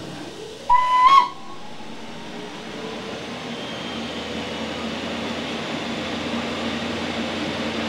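A short whistle blast about a second in, the signal to depart. Then the electric hum of the RhB Ge 6/6 I 'Krokodil' locomotive slowly builds and rises in pitch as it powers up to start away.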